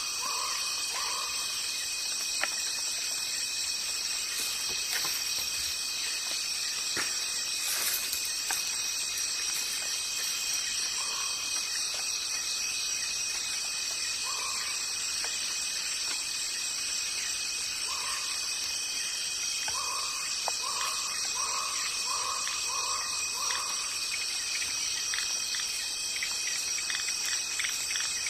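A steady chorus of insects, several high shrill tones layered together without a break. A short call near 1 kHz repeats over it, a few times singly and then in a quick run of about six.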